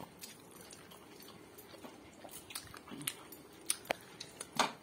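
People eating biryani with their hands: faint mouth smacks and small clicks of fingers working rice on the plates, with a few sharper clicks in the second half, the loudest near the end.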